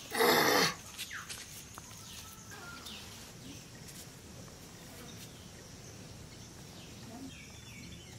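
A rooster gives one loud, harsh squawk about half a second long as it is held, then quiet outdoor ambience with a few faint bird chirps.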